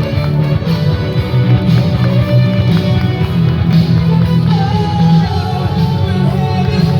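Loud music with a steady beat, with what may be a voice singing over it.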